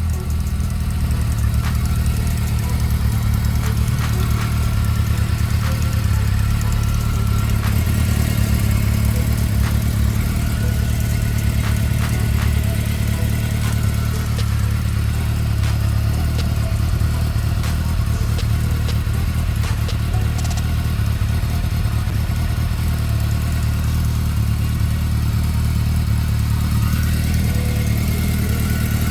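Honda CB400 Spec 3 inline-four engine idling steadily, with faint light ticks over the running note. The owner suspects the ticking may be a tensioner problem.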